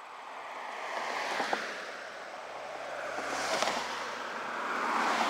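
Road traffic passing: tyre and engine noise from passing vehicles that swells and fades, peaking about three and a half seconds in and again near the end.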